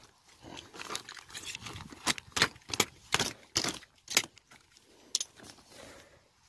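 Plastic coal sack rustling and crackling as its torn flap is pulled open, with a run of sharp clicks and clinks about one and a half to four seconds in as a hand rummages among lumps of eco-pea coal.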